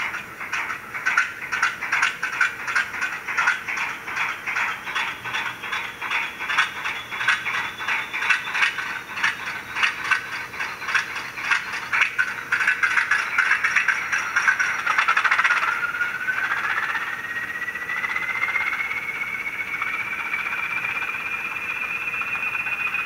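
Sound decoder playing a recorded PKP SP42 diesel shunter cold start through the model locomotive's small speaker. The engine knocks unevenly at two to three beats a second, quickening and running denser after about twelve seconds, then a whine rises steadily in pitch from about sixteen seconds on.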